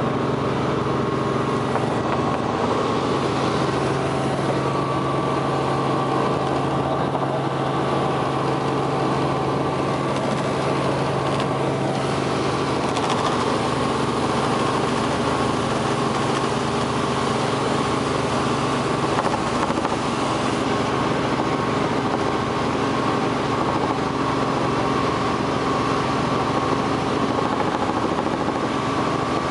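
Steady drone of a light helicopter's engine and rotors in flight, heard from inside the cabin.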